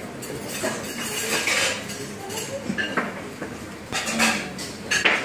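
Irregular clinking and rattling, like dishes or cutlery being handled.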